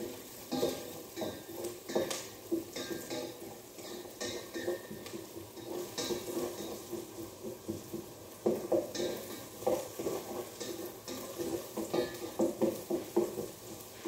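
A spatula stirring chicken apretada in a saucepan on the stove, giving irregular scrapes and knocks against the pot.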